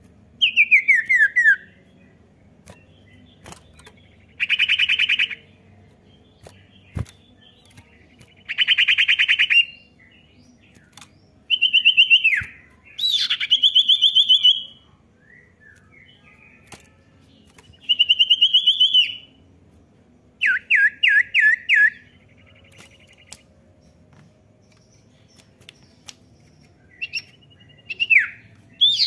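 Common iora (cipoh) calling in short bouts every few seconds. The bouts mix falling whistled notes, drawn-out buzzy trills and, just past the three-quarter mark, a quick run of down-slurred notes.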